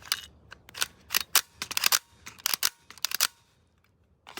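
Irregular sharp metallic clicks and clacks from an AR-15 fitted with a CMMG .22 LR conversion kit being worked by hand to clear a malfunction.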